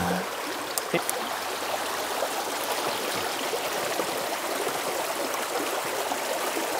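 Small mountain creek running over rocks in a shallow riffle: a steady rush of water, with a couple of faint clicks about a second in.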